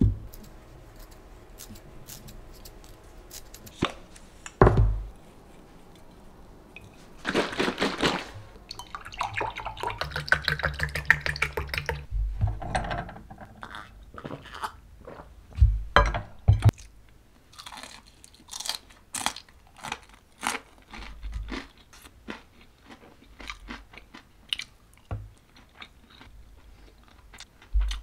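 Close-miked crunching and chewing of crispy fried chicken karaage, mixed with sharp clicks of chopsticks and dishes.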